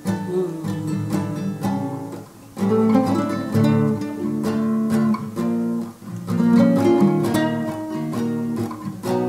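Classical acoustic guitar played solo, its chords picked and strummed, with several louder strummed chords along the way and no singing.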